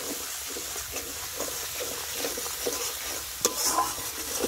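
Cumin and chilli paste sizzling in hot oil in a metal karahi while a flat metal spatula stirs and scrapes it in short repeated strokes, with one sharp clack about three and a half seconds in.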